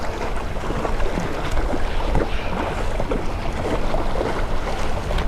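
Wind rumbling on the microphone over seawater splashing and lapping against shoreline rocks, with a hooked fish thrashing and splashing at the surface.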